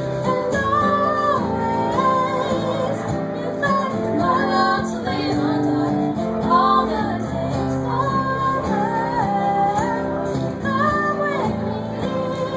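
Women singing a gospel song over acoustic guitar, with long held notes that waver in pitch.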